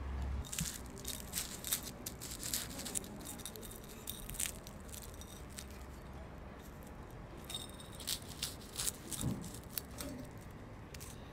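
Knife and fork cutting through a baked puff-pastry sausage roll: flaky pastry crackling in two spells of quick crisp clicks, the second about eight seconds in, with light knocks of the metal cutlery on the ceramic plate.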